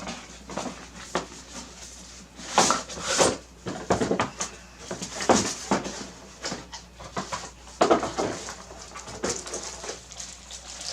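A graphics card box being opened and its packaging handled: irregular rustling and scraping of cardboard and plastic wrapping in short bursts.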